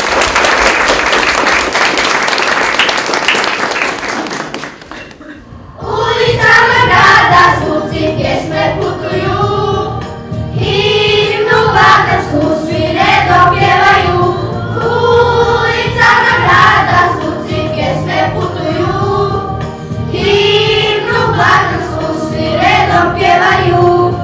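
Applause for about the first four and a half seconds, then a group of children singing a Christmas song together into a microphone over a musical accompaniment.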